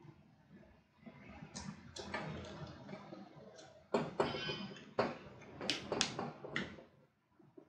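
The plastic pad housing of a NUX DM210 electronic drum kick tower being handled and pressed back together by hand, with rubbing and scraping and several sharp clicks as the parts seat, the clicks coming in the second half.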